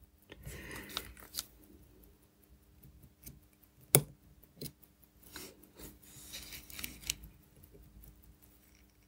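Small metallic clicks and light scraping of steel watchmaker's tweezers handling a cannon pinion on a watch movement, with one sharp click about four seconds in.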